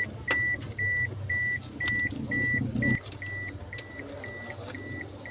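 Car's hazard warning lights flashing, giving short, even beeps at one pitch, about two a second, with faint clicks between them. A low hum under them stops about three seconds in.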